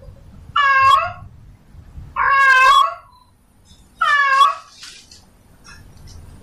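Male cat in heat calling for a female: three loud meows, each under a second long, spaced about a second and a half apart.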